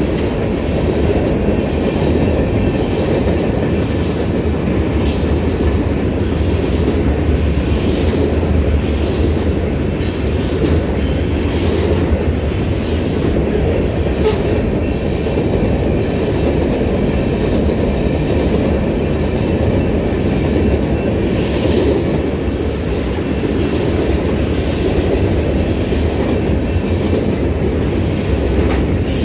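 Freight train cars (tank cars and covered hoppers) rolling past close by: a loud, steady rumble of steel wheels on the rails, with scattered sharp clacks as wheels pass over the rail joints.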